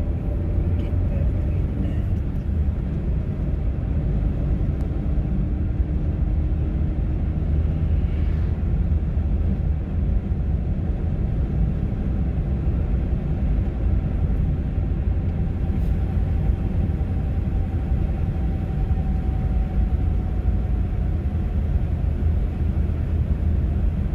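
Car driving at highway speed: a steady low rumble of engine and tyres on the road.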